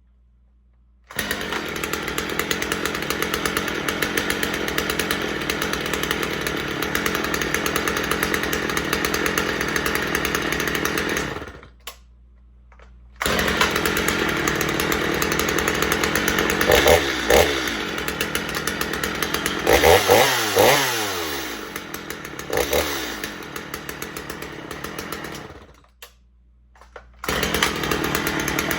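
Husqvarna 450 chainsaw's two-stroke engine running, with several throttle blips revving it up and letting it fall back. The sound starts abruptly about a second in and cuts off sharply twice, near 12 s and near 26 s, each time resuming suddenly.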